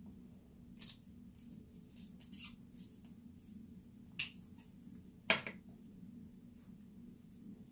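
A few small sharp clicks from a lip gloss tube and its wand being handled, capped and stood on a sink counter, the loudest about five seconds in, over a faint steady low hum.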